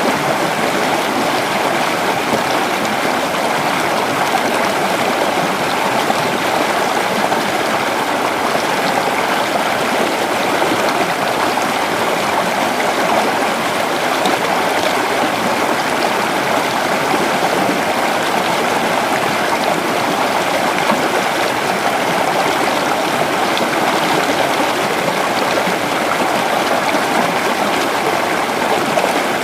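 A small river or creek flowing over rocks: a steady, even rush of running water with no change.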